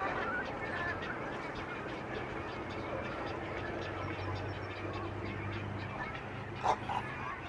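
Goose honking twice in quick succession near the end, over a steady background din.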